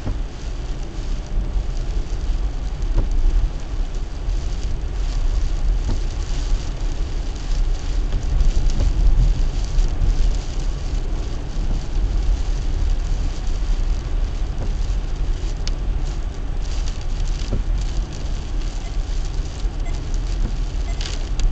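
Car driving on a wet road in the rain: a steady low rumble of road and engine noise under the hiss of tyres on wet tarmac and rain on the car.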